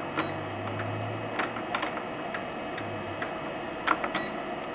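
Air fryer oven's control knob clicking as it is turned to set the cooking time, a steady run of about three clicks a second over a faint steady hum.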